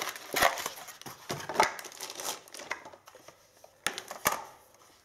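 Cardboard packaging rustling and crinkling as a computer mouse is worked free of its cardboard insert. Near the end, two sharp clicks about half a second apart.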